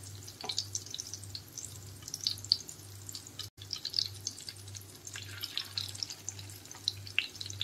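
Egg-coated mutton shami kabab patties shallow-frying in hot oil, a steady sizzle full of small crackling pops.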